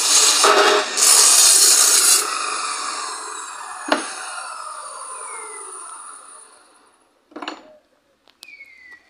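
Abrasive chop saw cutting through solid square steel bar, loud and gritty for about two seconds. The blade then spins down with a falling whine that fades out over several seconds, with a sharp click partway through. A few short metallic knocks come near the end.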